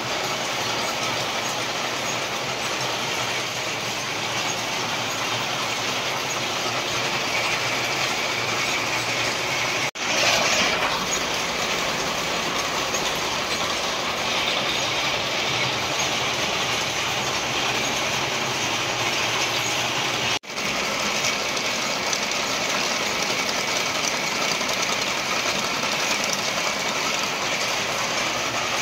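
Mechanical looms weaving silk cloth, running with a steady, dense clatter that breaks off for an instant twice.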